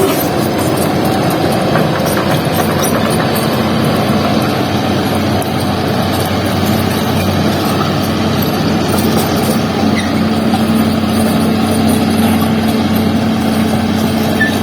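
Heavy diesel machinery at an earth-loading site running steadily, a continuous engine hum whose note grows a little stronger about two-thirds of the way through.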